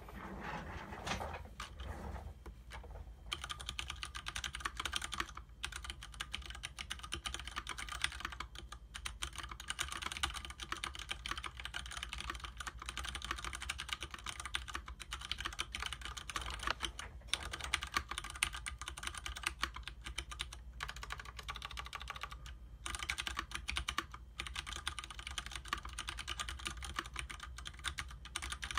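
Leopold FC750R mechanical keyboard with tactile Cherry MX Clear switches and DSA-profile keycaps being typed on: fast, continuous keystroke clicks broken by several short pauses.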